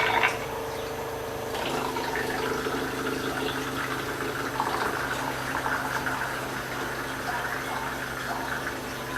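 Washing machine water inlet solenoid valve open, with water rushing through it and a steady hum from the valve. About a second and a half in the hum changes and then holds steady: the initial noise that settles down, which the repairer links to the valve's diaphragm repair kits.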